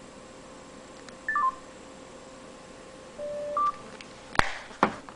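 Keypad beeps from a Motorola cell phone: a quick falling run of three short tones about a second in, then a lower tone followed by a higher one a little past three seconds. Two sharp clicks come near the end.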